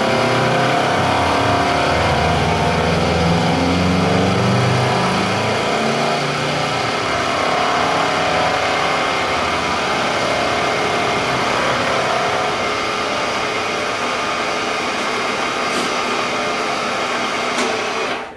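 Acer Ultima 3VK milling machine taking a cut with an indexable-insert cutter: a loud, continuous machining noise, rougher and heavier for the first several seconds, then steadier. It stops abruptly near the end.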